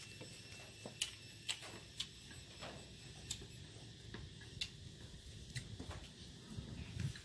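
Small irregular clicks, about one a second, from chewing boiled buffalo skin and picking at fresh herbs, over a faint steady high-pitched tone.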